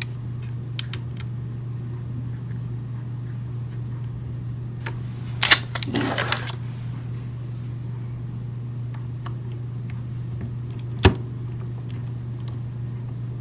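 Clicks and rustling of a Shark robot vacuum's plastic parts being handled while a screw is put in, with a burst of handling noise about halfway through and one sharp click near the end. A steady low hum sits underneath.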